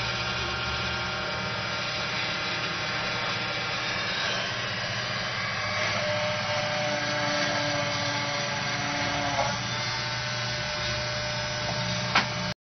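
Small CNC PCB drilling machine running: its spindle motor gives a steady whine and hum, with a sharp click near the end before the sound cuts off.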